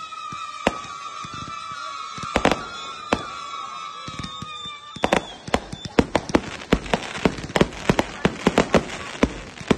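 Aerial fireworks bursting. For the first half there are a few scattered bangs under a steady high whistle-like tone that falls slightly in pitch. About five seconds in the tone stops and a dense, rapid barrage of bangs and crackles begins.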